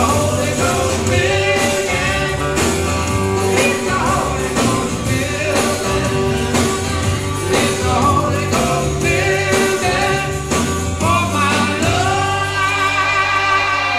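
Live rock band music with a lead vocal, settling into a long held chord near the end.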